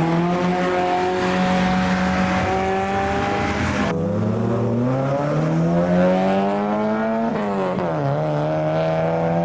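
Car engine pulling away under throttle: held steady at first, then the revs climb, drop sharply at a gear change about seven seconds in, and climb again.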